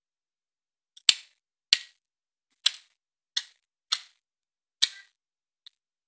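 Black woodpecker chiselling into a decaying tree trunk with its bill: six single sharp knocks at an uneven pace, a little under a second apart, each ringing briefly, then a faint tap near the end.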